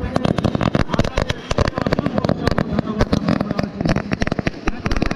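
Fireworks going off in a rapid, irregular string of sharp cracks and bangs, several a second, with sparks bursting overhead.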